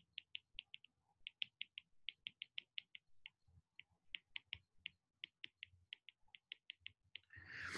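Stylus tip tapping on an iPad's glass screen while handwriting: an irregular run of light ticks, about five a second, with short pauses between words.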